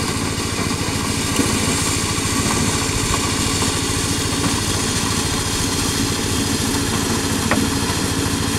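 Small engine running steadily, driving a motorized corn sheller.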